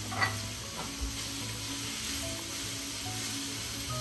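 Chicken and vegetables sizzling in a wok as broccoli is added and stirred, with a few knocks of the spatula against the pan in the first second. Soft background music with steady notes plays underneath.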